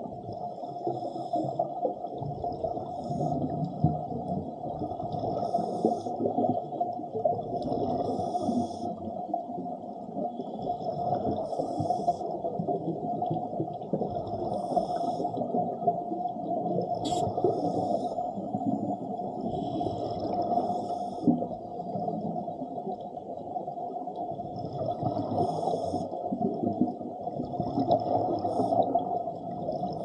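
Underwater sound from a scuba dive: constant low water noise, with the hiss and bubbling of divers' regulators breathing in short bursts every two to three seconds. There is one sharp click about seventeen seconds in.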